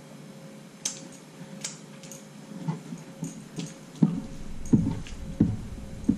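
Close-up eating sounds, with a few sharp chewing and mouth clicks, then from about four seconds in a pet dog whining in four short yelps, which are the loudest sounds.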